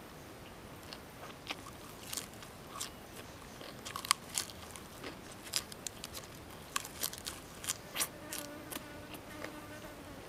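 Close-up mouth sounds of someone biting and chewing crisp fresh lettuce leaves, with irregular crunches and wet clicks, the loudest about four seconds in. A faint steady buzz joins about eight seconds in.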